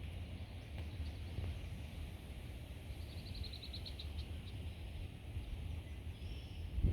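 A small bird sings a quick run of about ten short, high repeated chirps, lasting just over a second, over a steady low rumble of outdoor noise.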